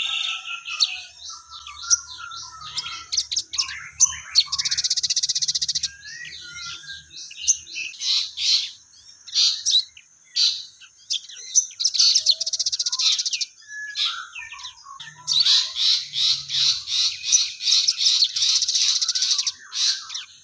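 Sogon songbird singing vigorously, a busy run of chirps and rapid buzzy trills, with longer trilled passages about a quarter of the way in, in the middle and through the last few seconds. Its song carries imitations of squabbling tree sparrows.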